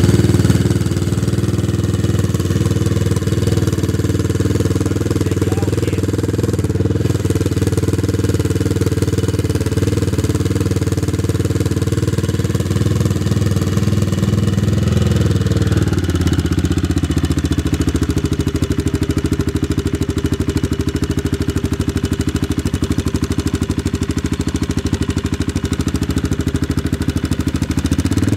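CCM Spitfire's single-cylinder four-stroke engine idling through its twin silencers, a steady pulsing note that shifts slightly about halfway through.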